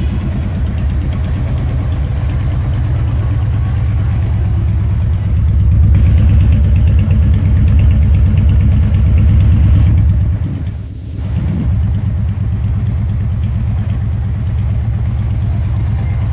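Harley-Davidson Road Glide Ultra's V-twin engine idling with a steady low rumble, revved up and held louder for a few seconds about five seconds in, then dropping back to idle.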